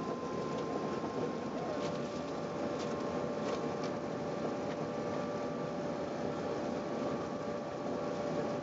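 Steady rushing cabin noise inside an Airbus A380 in flight, with a couple of high steady whines over it. A further, lower steady whine comes in about two seconds in and holds, with a few faint clicks around it.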